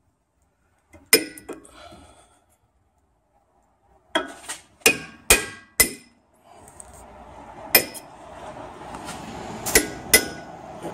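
Hammer driving a chisel against the slotted metal sleeve of a worn front wishbone (control arm) bush to split it off the arm's shaft. About nine sharp metallic blows ring out in uneven groups, and a steady noise builds beneath them in the second half.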